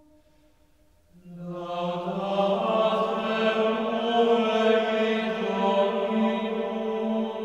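Background music of sustained, chant-like voices holding one low note. It enters about a second in, after near silence, and swells fuller.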